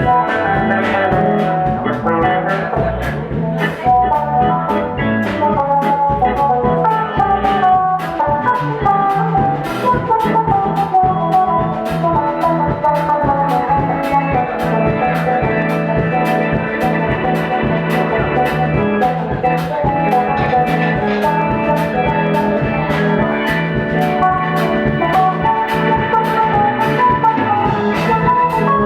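Live rock band playing an instrumental jam: melodic lead lines over bass and a drum kit keeping a steady beat.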